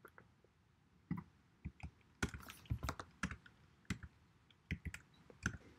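Computer keyboard typing: faint, irregular key clicks in short runs, starting about a second in.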